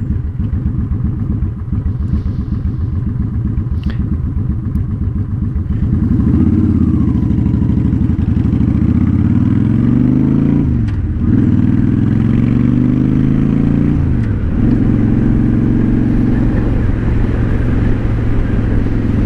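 Honda Shadow Spirit 750's V-twin running through a Cobra Streetrod Slashdown exhaust. It runs steadily at first, then about six seconds in it pulls away, rising in pitch. The pitch drops at two gear changes, then holds steady at cruise. Wind noise on the microphone runs underneath.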